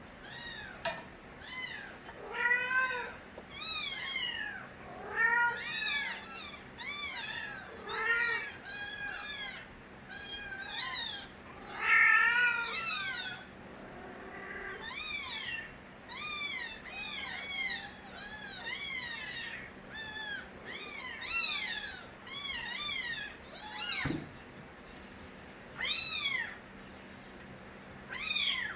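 Stray kittens meowing loudly: a long run of short, high-pitched, arching cries from several kittens at once, often overlapping, with one sharp knock about three-quarters of the way through.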